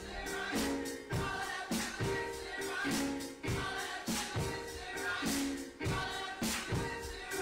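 A gospel choir singing with band accompaniment over a steady beat, about three beats every two seconds.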